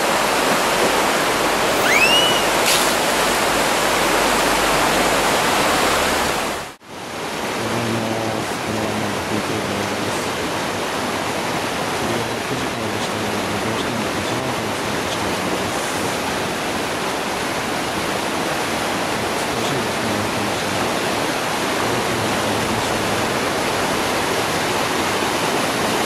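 Fast mountain stream rushing over rocks in white-water rapids: a loud, steady rush of water. A short rising chirp comes about two seconds in, and the sound drops out for a moment about seven seconds in.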